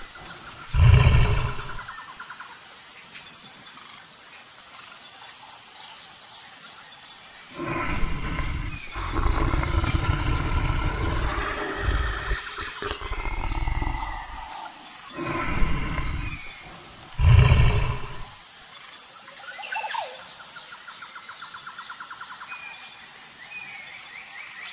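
Brown bear roaring and growling in deep bursts: one about a second in, a long run of growls from about eight to fourteen seconds, and two more short roars near sixteen and seventeen seconds. Under them, crickets chirr steadily and birds chirp near the end.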